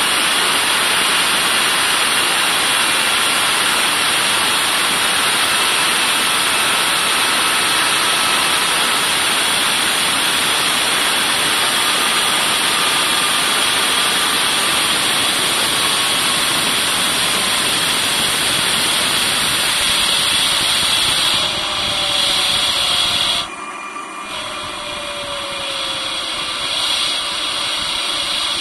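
Home-built jet engine running with a loud, steady rushing noise and a thin whine that glides slowly lower in pitch. About 23 seconds in the sound drops sharply in level, then climbs gradually with a lower whine.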